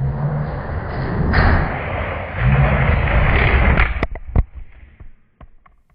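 Die-cast Hot Wheels cars rolling fast down plastic track with a loud rumble, then a handful of sharp clacks about four seconds in as they hit the finish, after which the sound dies away.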